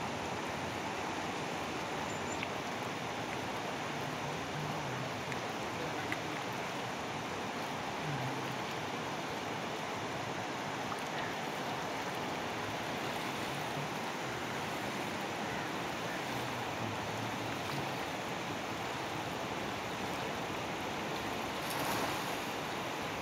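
Fast, shallow river rushing steadily over rocks, with a brief louder rush of water about two seconds before the end.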